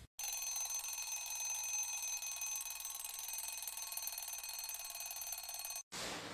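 Alarm clock ringing steadily, several high tones held unchanged, starting abruptly and cutting off suddenly near the end.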